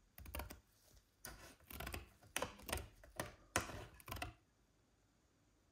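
Scissors cutting through a thin sheet of clear plastic: a quick series of crackling snips over about four seconds, then they stop.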